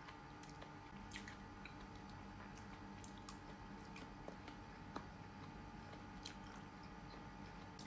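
Faint eating sounds: chewing mouthfuls of pork miso soup, with scattered light clicks of chopsticks against a ceramic bowl, over a steady low hum.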